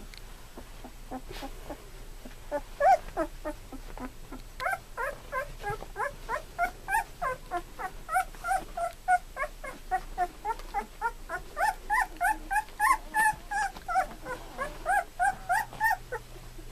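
Two-week-old golden retriever puppies crying: a string of short, high whimpers, about two or three a second, beginning about three seconds in and running until near the end.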